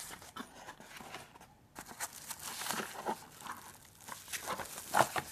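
Packaging being handled and unwrapped: irregular crinkling and rustling, with a sharper crackle about five seconds in.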